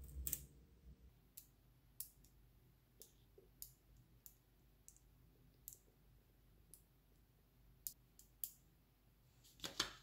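Small neodymium magnetic balls clicking as they snap together, in single sharp clicks about once a second, with a louder snap just after the start and a quick cluster of clicks near the end.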